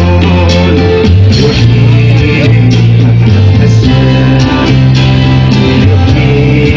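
Live Kabyle band playing an instrumental stretch: mandole and guitars over electric bass, drum kit and hand percussion, with a steady beat and held bass notes.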